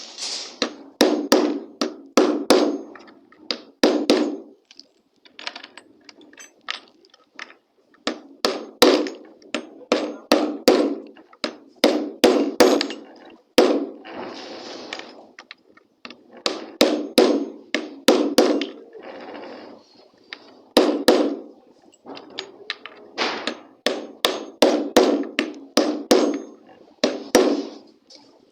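Hammer striking nails in quick runs of several blows a second, each with a short ringing, and pauses between the runs. Twice there is a brief scraping sound.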